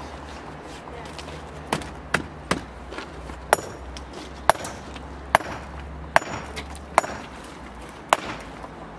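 A blade chopping down onto a wooden block: about nine sharp strokes at uneven intervals roughly a second apart, several with a brief metallic ring.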